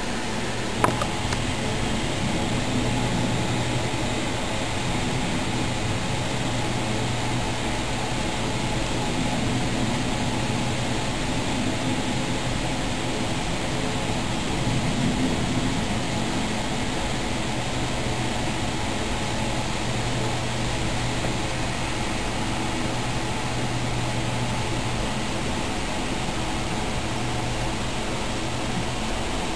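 Steady hum and hiss of continuous background machine noise, with one sharp click just under a second in.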